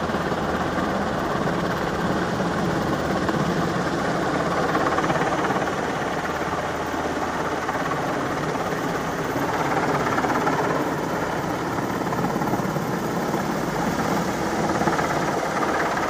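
Heavy engines running steadily, a dense, even mechanical noise that swells slightly now and then.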